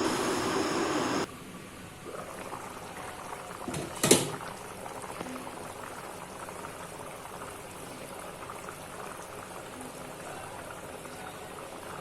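Pot of chicken curry bubbling at a rolling boil. The sound is louder for the first second or so, then drops suddenly to a steady softer bubbling, with one sharp knock about four seconds in.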